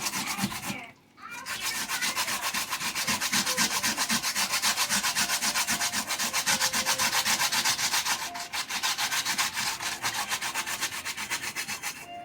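Raw sweet potato being grated by hand on a small grater: quick, even rasping strokes, several a second, with a brief pause about a second in and a little fainter in the last few seconds.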